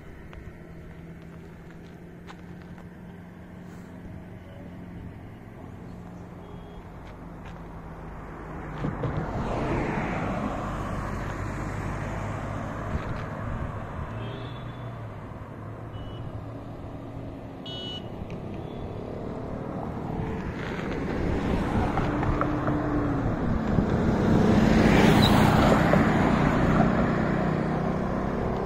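Road traffic: cars driving past on a highway, their tyre and engine noise swelling twice, about ten seconds in and louder near the end, the second pass with an engine note dropping in pitch as it goes by. A low steady engine hum comes before the first pass.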